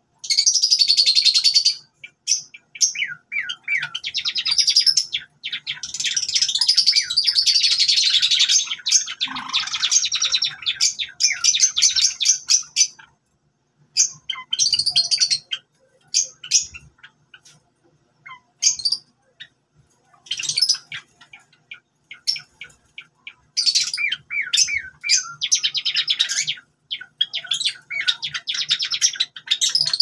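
A small group of white Java sparrows chirping, a rapid mix of high chirps and clicking notes in bursts, with short breaks between the bursts.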